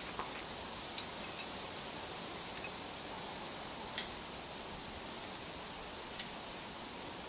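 Three sharp metallic clinks of hand tools, well spaced, over a steady background hiss.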